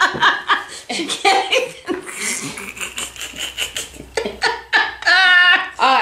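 Women laughing helplessly in breathy bursts, rising to a high, wavering peal of laughter about five seconds in.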